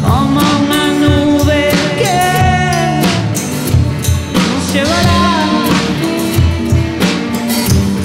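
Live rock band playing: drum kit and two electric guitars, with a lead melody line that slides and bends in pitch in two phrases, one from just after the start and another about four and a half seconds in.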